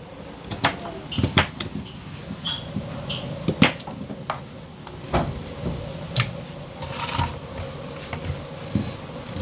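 Irregular sharp knocks and clicks of a kitchen knife cutting pumpkin into pieces.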